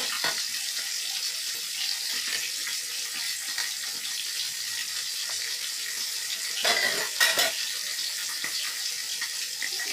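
Whole fish frying in hot oil in a wok, a steady sizzle, with a brief louder clatter about seven seconds in.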